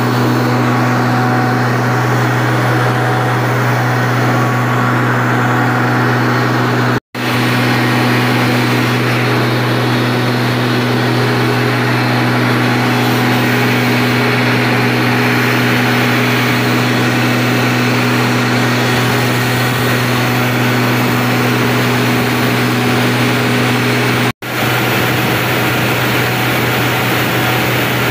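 Greaves Cotton 12-cylinder diesel engine of a 500 kVA generator set running steadily at about 1500 rpm, under a load of about 187 kW. It is a loud, constant hum that drops out for an instant twice.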